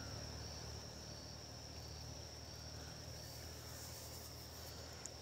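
Faint, steady background chirring of insects, a thin high-pitched drone, over a low steady hum.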